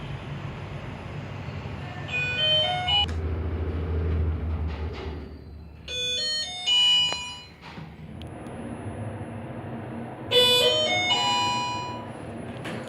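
Hyundai elevator's electronic chimes: a quick rising run of notes about two seconds in, two short tones in the middle, and another rising run of notes near the end. A low hum lies under the first run.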